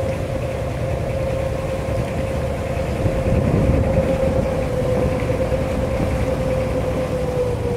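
Small harbour boat's engine running steadily underway: a low rumble with a steady hum, the hum dropping slightly in pitch near the end.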